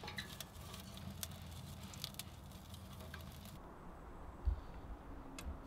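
Young kindling fire crackling with small, scattered pops in the open firebox of a small woodstove, a stick being pushed in among the burning twigs. After about three and a half seconds the crackle drops away, leaving a quieter low rumble and one low thump about a second later.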